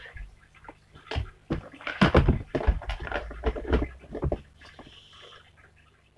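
Slime being squished and worked by hand in a plastic tub, giving irregular wet squelches and pops that are loudest in the middle and die away near the end.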